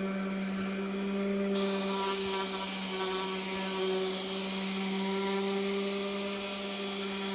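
DeWalt random orbital sander running steadily while sanding a wooden 2x4 railing: a steady motor hum with the hiss of the sanding pad on the wood, the hiss growing brighter about a second and a half in.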